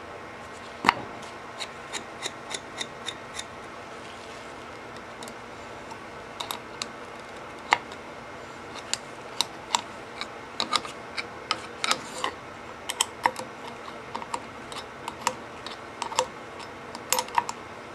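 Small open-end spanner clicking against the nut on a threaded rod as the nut is turned and the spanner is refitted a bit at a time: light metallic clicks, irregular, with a run of about three or four a second early on.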